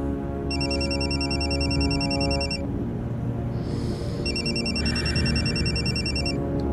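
A telephone rings twice with a rapid electronic warbling trill, each ring about two seconds long with a short pause between, over background music.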